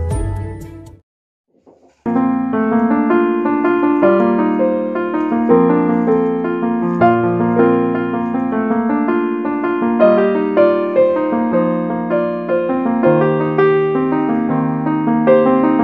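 Background music: a brief fade-out, a second of silence, then solo piano playing a steady flow of notes from about two seconds in.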